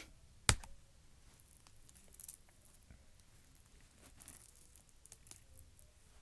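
A single sharp click about half a second in, then faint scattered rustling and light ticks.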